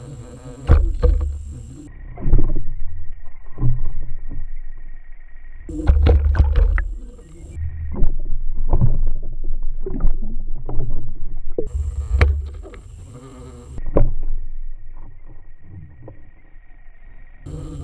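Muffled underwater noise picked up by a submerged camera: irregular sloshing with clusters of sharp knocks and deep thumps, over a faint steady high whine that cuts in and out several times.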